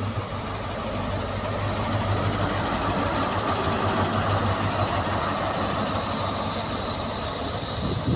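An InterCity 125 HST diesel power car passing close by as the train arrives at the platform. Its engine runs with a steady drone, with a thin high whine over it.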